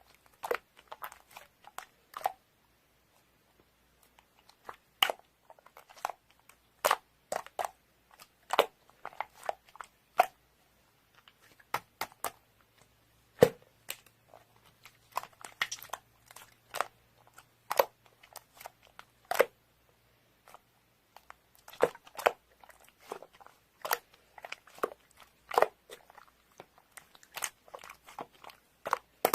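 Crunchy chewing close to the microphone: sharp, irregular crunches, a few at a time with short pauses between.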